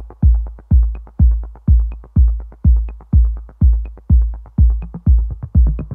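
Electronic dance music with a heavy kick drum about twice a second and fast ticking percussion between the beats.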